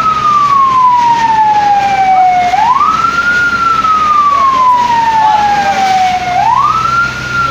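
Fire engine siren wailing in a slow cycle: each wail climbs quickly, then falls away slowly, starting over about every four seconds, twice within the span.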